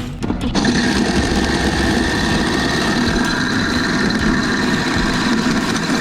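An engine running steadily, starting about half a second in.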